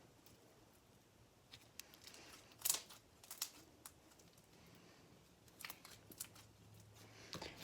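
Faint, scattered clicks and pops of a floam slime with small beads in it being pulled apart and squeezed by hand, the sharpest pop a little under three seconds in.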